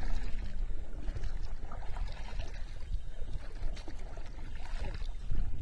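Kayak paddles dipping and splashing in river water, with trickling drips off the blades, over a low rumble.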